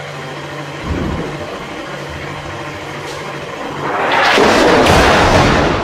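Artillery shelling: a dull thump about a second in, then a loud rushing blast that swells about four seconds in and lasts nearly two seconds, over a low steady hum.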